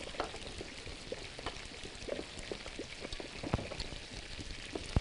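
A pot of custard bubbling on the stove as it is stirred: a steady hiss with scattered small pops and clicks. One sharp knock comes near the end.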